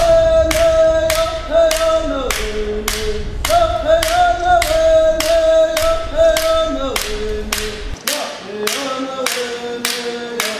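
Voices singing a slow melody without instruments, holding long notes, over a steady beat of sharp claps, about three a second.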